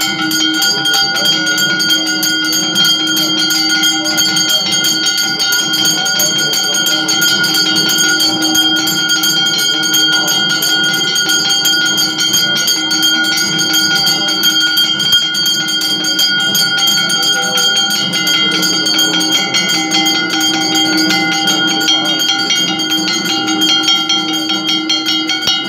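Temple bells rung rapidly and without pause for an aarti, with a hand-held metal gong beaten with a stick: a dense, steady metallic ringing that holds several fixed pitches.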